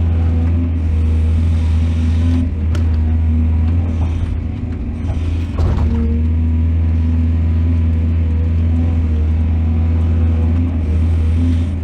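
Heavy diesel engine of an excavator running steadily with a low hum, with a brief clatter about halfway through.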